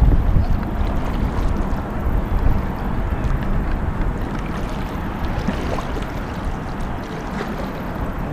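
Steady rush of shallow river water around a kayak moving through a rocky riffle, under a deep rumble of wind buffeting the microphone. A brief louder bump comes right at the start.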